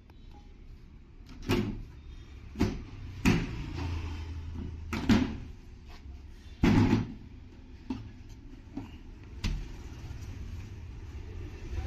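Irregular knocks and clunks, about eight spread over several seconds, over a low steady hum.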